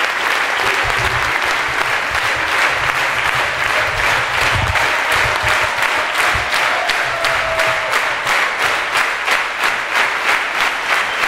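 Large audience applauding, the scattered clapping falling into steady rhythmic clapping in unison in the second half.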